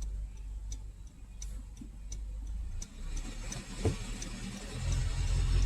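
2014 Honda Accord engine running in gear with an uneven low rumble from a misfire the scan tool traces to cylinders 1 and 4, swelling louder about three seconds in and again near the end. A light, evenly spaced ticking runs over it about three times a second.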